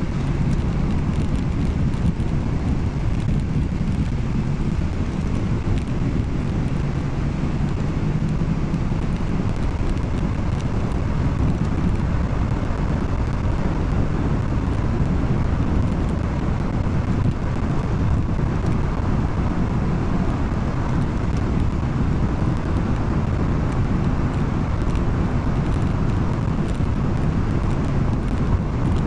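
Steady low road noise and engine drone inside the cabin of a moving car.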